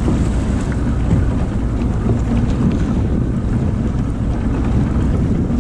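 Wind buffeting the microphone over the wash of choppy sea around a boat, a steady rumbling noise.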